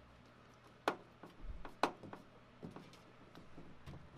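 Small screwdriver clicking and ticking against plastic DIN-rail terminal blocks while wires are landed, with two sharper clicks about one and two seconds in and a soft low bump between them.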